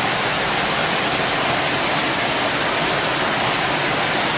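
Heavy rain falling steadily on and around a tent, an even, unbroken hiss.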